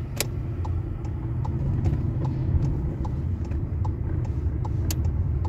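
Steady engine and road rumble heard inside a moving car, with the turn indicator ticking evenly about two to three times a second as the car signals to leave a roundabout.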